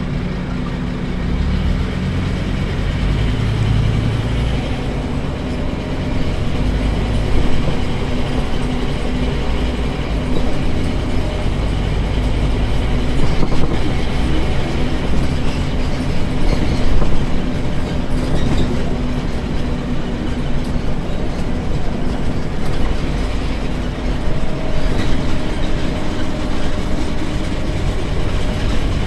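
On-board sound of a Scania K310UD double-decker bus under way in Drive: its Scania DC9 five-cylinder diesel and ZF six-speed automatic gearbox running steadily. Body rattles and road noise run throughout, with a few louder knocks.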